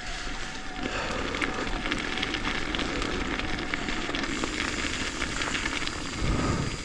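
Mountain bike rolling over a rough trail: steady tyre and wind noise with scattered clicks and rattles of the bike, and a heavier low bump near the end.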